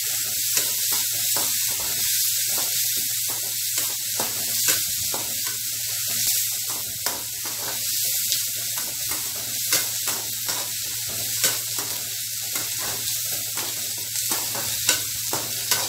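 Chopped onion, tomato, green chilli and garlic sizzling in oil in a metal kadai, sautéing, with a slotted metal spatula scraping and tapping the pan in irregular strokes.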